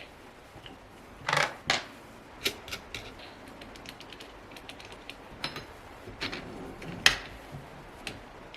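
Irregular clicks and knocks of small hard parts being handled, with three louder knocks and many light taps in between.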